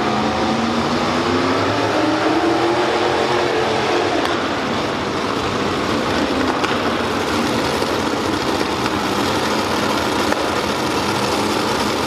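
Modified pulling tractor engine at full throttle during a pull, loud, its pitch climbing over the first few seconds and then holding in a steady loud run.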